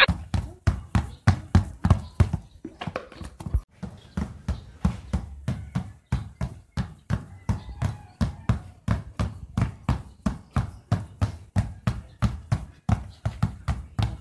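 Two basketballs dribbled at once on a concrete street: a quick, steady run of bounces, about four or five a second.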